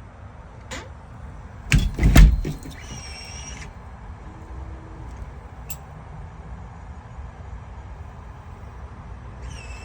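A door being handled, with a few knocks and a heavy thud about two seconds in, followed by a short electronic chime from the Wyze Palm Lock smart lock and a single click near the middle.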